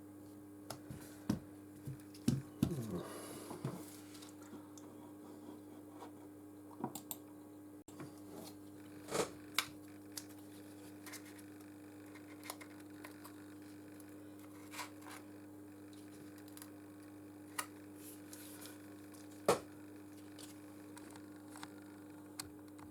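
Scattered small clicks, taps and a few brief scrapes of a tool working at a Nexus 6P phone's screen edge as it is pried away, over a steady low electrical hum.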